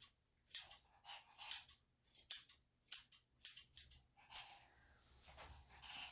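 Grooming scissors snipping through a Shih-Tzu's leg fur: about eight quick, crisp snips, roughly two a second, then a softer rustle of fur near the end.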